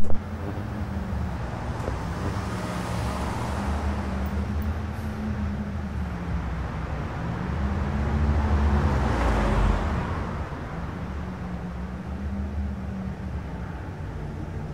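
Low rumbling street traffic with a steady, slowly wavering hum; a vehicle passes, swelling to a peak about nine seconds in and then falling away.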